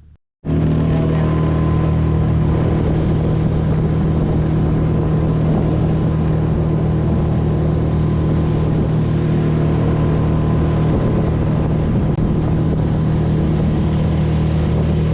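Boat motor running at a steady speed, a loud, even engine tone that cuts in suddenly about half a second in.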